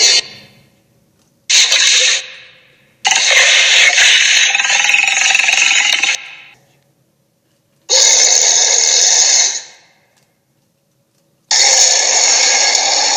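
Sound effects for a made-up tiger–gorilla creature: four separate harsh, rasping growl-like calls, one short and three lasting two to three seconds, each followed by silence.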